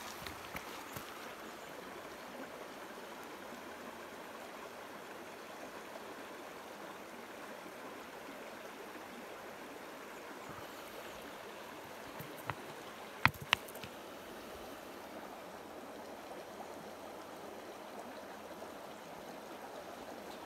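Creek water running steadily. About two-thirds of the way through come two sharp clicks in quick succession.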